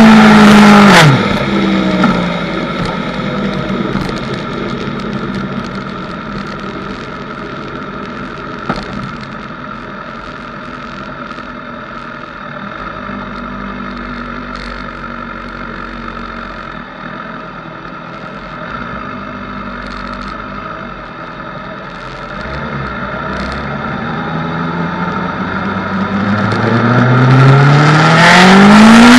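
A vehicle engine, loud and high-revving, falls steeply in pitch as it eases off about a second in. It gives way to a long, much quieter stretch of steady road and wind noise with a low engine hum at cruise. Near the end the engine revs up again, its pitch climbing steeply as it grows loud.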